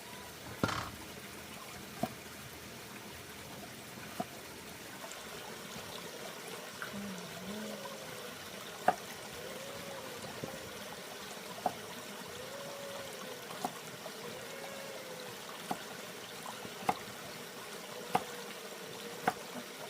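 Steady running-water hiss, with sharp single knocks every one to two seconds from a knife striking a cutting board.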